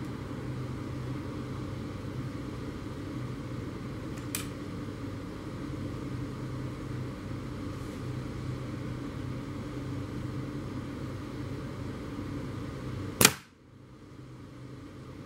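A single air rifle shot, one sharp crack about thirteen seconds in, over a steady low hum. A faint click about four seconds in.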